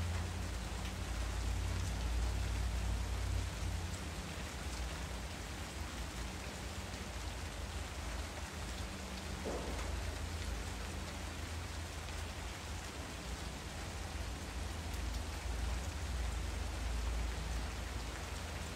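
Steady hiss over a low rumble, with one brief faint sound about nine and a half seconds in.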